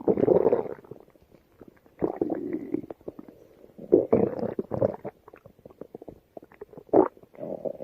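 Stomach growling: irregular gurgling rumbles in several bursts, the loudest at the start and about four seconds in, with a short sharp gurgle about seven seconds in.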